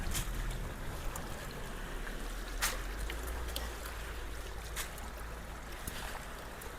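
Creek water flowing through a culvert clogged with storm debris, a steady rush with trickling. A few sharp knocks cut through it, the loudest about halfway.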